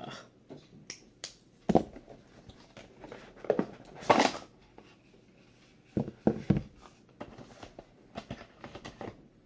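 Packaging being handled and opened by hand: scattered clicks, knocks and thuds of cardboard and plastic, with a brief louder scrape about four seconds in.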